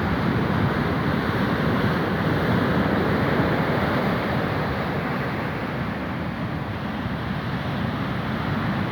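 Steady rush of sea waves and wind, swelling and easing slowly, with wind buffeting the microphone.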